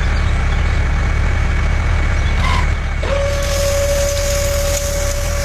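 Tractor engine running with a steady low rumble. About halfway through, a single steady high tone starts and holds.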